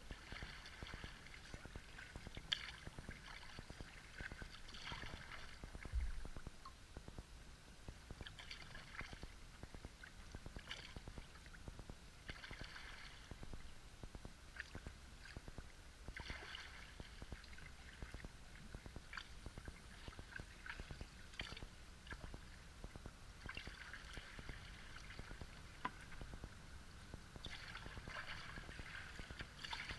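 Double-bladed paddle strokes from a sea kayak, the blades dipping into and lifting out of the water with light splashing and dripping every second or two. There is a single low thump about six seconds in.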